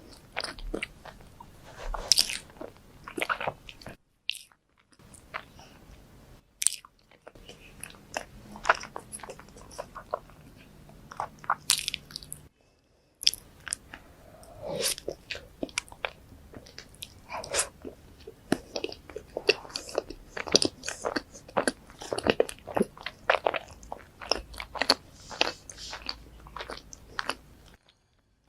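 Close-miked mukbang eating sounds: bites and chewing of Nutella-stuffed pancakes, a dense run of irregular wet clicks and smacks, broken a few times by brief silent cuts.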